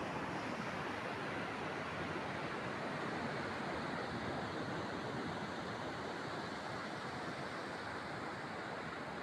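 Steady wash of ocean surf breaking on the distant shoreline, mixed with wind.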